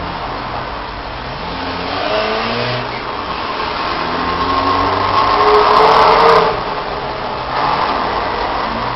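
Motor vehicle engine, getting louder with a rising note to a peak about six seconds in, then dropping off.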